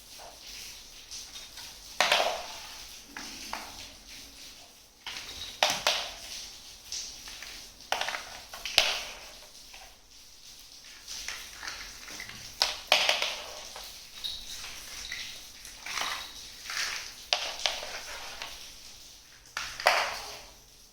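Miniature toy kitchenware being handled: an irregular series of clicks, taps and light clinks, with a handful of louder knocks among them.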